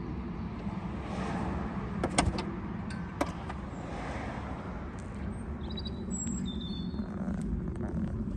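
Audi RS Q8's twin-turbo V8 idling steadily, with two sharp clicks about two and three seconds in. A few brief high bird chirps come near the end.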